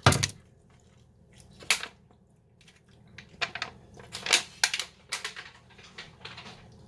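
Someone eating a grilled rib close to the microphone: wet smacks and clicks of chewing, several coming close together in the second half.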